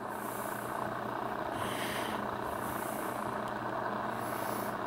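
Steady background hum and noise, with no distinct event.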